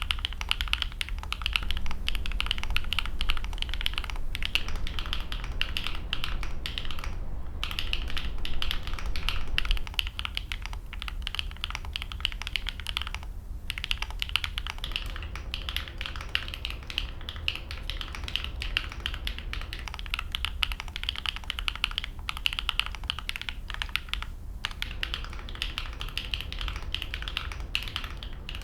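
Fast, continuous typing on a QK Alice Duo split mechanical keyboard, the key clicks coming in quick runs broken by a few brief pauses, a little louder for the first ten seconds or so.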